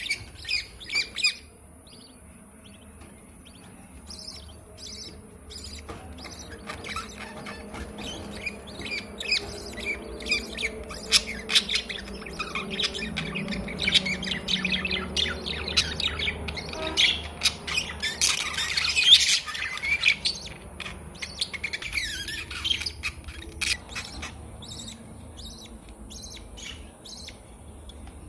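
Budgerigars chirping and chattering in many quick, short calls. The calls grow busy in the middle, peak in a loud cluster about two-thirds of the way through, then thin out.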